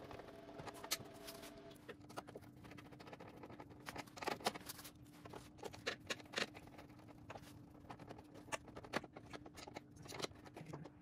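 Faint, irregular clicks and scrapes of a hand screwdriver and screws being worked into the plastic front bumper trim around a winch fairlead, with a steady low hum underneath.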